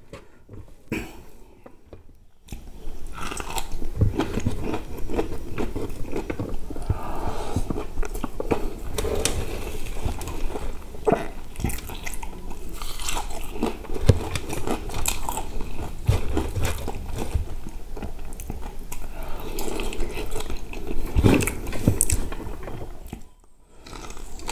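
Close-up chewing and crunching of crispy deep-fried chicken and rice. It starts about two and a half seconds in, runs on steadily with many small crackles, and stops briefly near the end.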